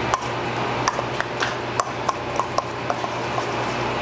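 A metal spoon stirring diced pineapple salsa in a stainless-steel mixing bowl. It gives repeated sharp, irregular clinks against the bowl over a steady low hum.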